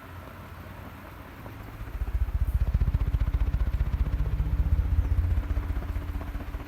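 A 1999 Venti-Delta 110 V ceiling fan running. A rapid, even low pulsing with a faint hum swells up about two seconds in and eases off near the end.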